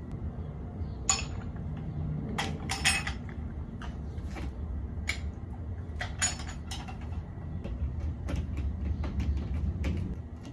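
Metal bracket parts and hardware of a fire extinguisher mount clinking and knocking as they are handled, in irregular sharp clicks over a steady low hum.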